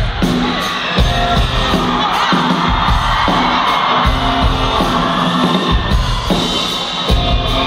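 Rock band playing live, with a steady drum beat, bass and electric guitar. The crowd whoops and shouts over the music, heard from within the audience.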